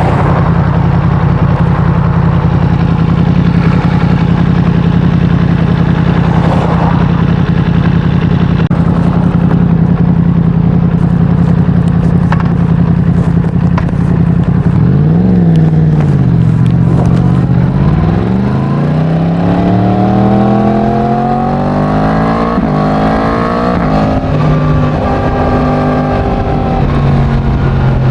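Yamaha MT-10's crossplane inline-four engine through its stock exhaust, running at a steady speed for about half the time. It then gives a short rise and fall in pitch, and accelerates with the pitch climbing, dropping at a gear change and climbing again before it settles.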